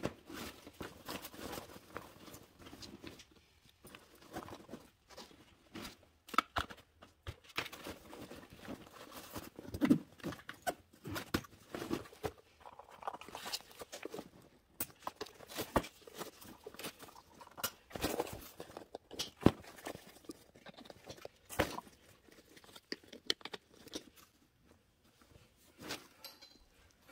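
Handling noises of roller derby gear being packed into a skate backpack: irregular rustles and knocks as pads and quad roller skates are pushed in and strapped on.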